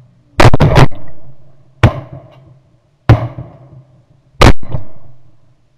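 A volley of about seven shotgun blasts from several hunters firing at passing geese: a quick string of three near the start, then single shots about every second and a half, with a double near the end, each dying away in a short echo.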